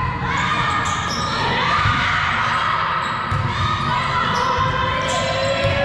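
Indoor volleyball game in a gym: several voices calling over thuds of the ball and footfalls on the court, with a few sharp impacts.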